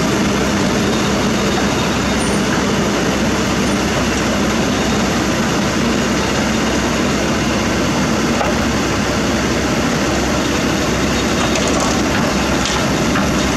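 Kobelco SK200 excavator's diesel engine running steadily under load as it tracks up onto the tilted deck of a self-loader truck, a loud, even drone.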